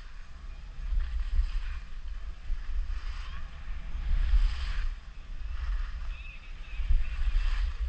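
Wind buffeting an action camera's microphone during a fast ski descent, with skis scraping and hissing on packed snow; the scraping swells and fades several times.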